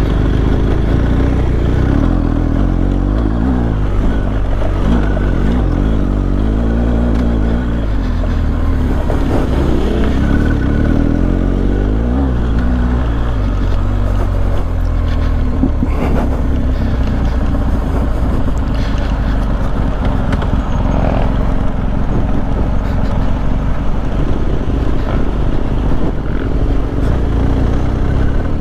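Adventure motorcycle engine running while being ridden along an off-road trail, its pitch rising and falling with the throttle.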